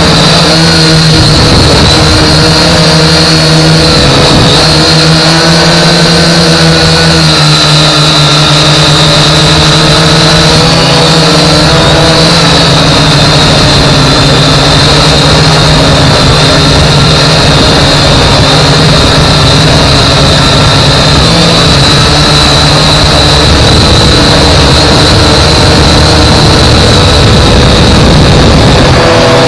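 Global Drone X183 quadcopter's motors and propellers running in flight, picked up close by its own onboard camera: a loud, steady whine of several tones whose pitch wavers slightly in the first dozen seconds.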